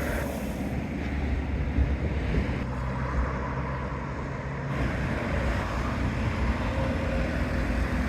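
Steady low rumble of a motor vehicle's engine with road noise.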